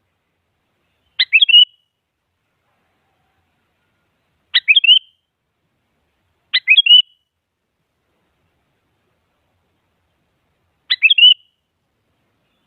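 Sooty-headed bulbul calling: four short, quick phrases of a few sliding notes each, spaced a few seconds apart with silence between.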